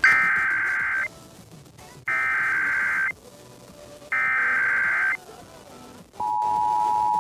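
Emergency Alert System SAME header: three one-second bursts of warbling digital data tones about a second apart, then the steady two-tone EAS attention signal begins about six seconds in, opening a Required Monthly Test over FM radio.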